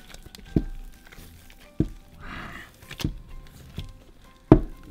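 Four dull thuds as gloved hands scoop clumps of thick cornstarch-and-shampoo slime out of a glass bowl onto a table, the last thud the loudest, with a brief squish in the middle. Soft background music plays underneath.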